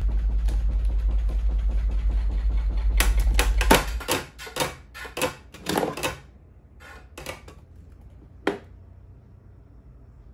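Homemade rotary subwoofer running at 5 Hz, a deep rumble pulsing about five times a second. About three seconds in, a rapid run of loud clattering knocks comes from its blade-pitch mechanism as it fails, and the rumble stops about a second later. One more knock follows near the end.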